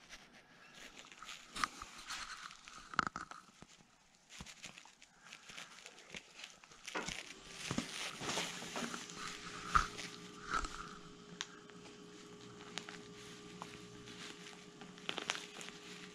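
Hands rustling through and parting the breast feathers of a freshly killed wild turkey, with scattered soft crackles and clicks.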